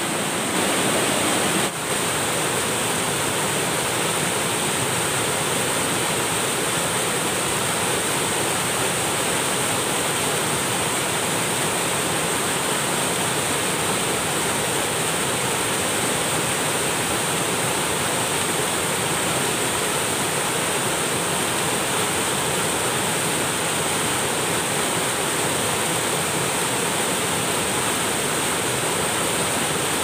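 Small rocky waterfall with a steady rush of white water tumbling over boulders.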